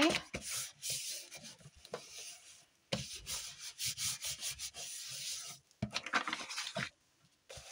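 Paper and cardboard being rubbed and handled by hand, irregular scratchy strokes in a few stretches with brief pauses between them.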